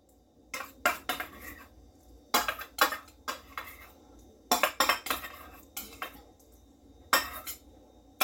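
Metal spoon scraping and clinking against a yogurt container and a stainless steel mixing bowl as thick yogurt is spooned out, in irregular groups of short clinks and taps.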